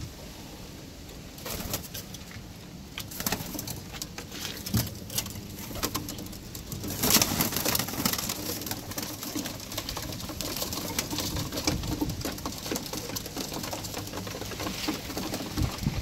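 Birmingham Roller pigeons cooing while they jostle and flap their wings over a wooden feed tray. Rapid scattered taps of beaks pecking grain off the wood grow busier and louder from about seven seconds in.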